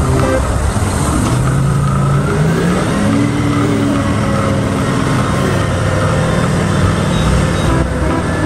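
Large truck engine running and revving, rising in pitch about two seconds in.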